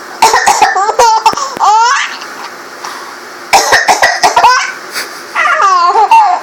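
A woman coughs in short bursts and a baby laughs back with high, squealing laughs, twice over.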